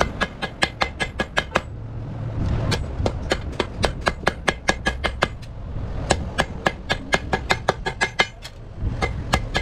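Wooden mallet striking thin sheet metal laid over a steel edge, folding its edge. The blows come fast, about five a second, in three runs with short pauses between them, each blow with a short tinny metallic ring.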